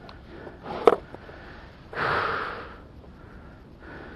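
A person's sharp breath out, close to the microphone, about two seconds in, swelling quickly and fading over most of a second. A short light knock comes about a second in.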